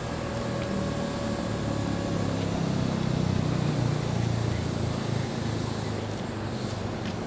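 Keihan 10000 series electric train standing at the platform with its doors open, its onboard equipment humming steadily and swelling louder about halfway through. A steady high tone sounds over it for the first two seconds or so.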